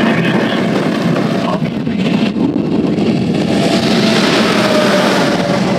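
Car driving, with steady engine and road noise.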